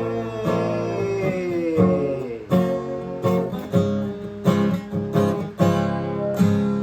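Acoustic guitar music: strummed chords, with a steady run of strums in the second half.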